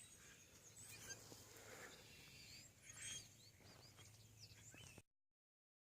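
Faint birdsong, short high chirps and whistles, over quiet outdoor field ambience; the sound cuts off to dead silence about five seconds in.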